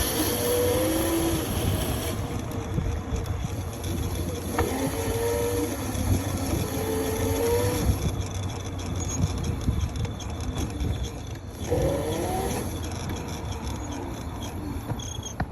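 Razor RSF650 electric mini motorbike being ridden: the motor's whine rises in pitch a few times under a steady rumble of wind and tyre noise.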